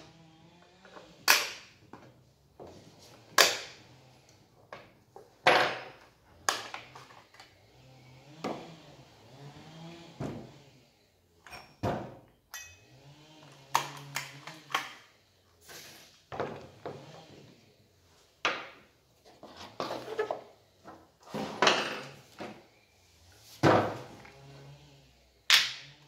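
Irregular clicks, knocks and clunks of hand tools and chainsaw parts being handled on a wooden workbench, a second or two apart.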